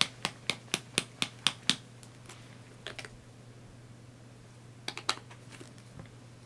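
Light clicks from fingers handling a small cosmetic bottle: a quick, even run of about four clicks a second for the first two seconds, then a few scattered clicks.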